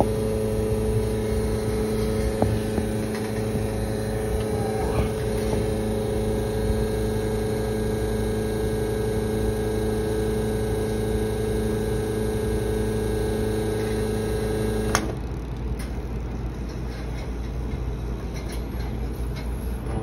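Espresso machine's pump humming steadily while a double shot pours, then cutting off suddenly about three quarters of the way through as the extraction stops, leaving a low rumble.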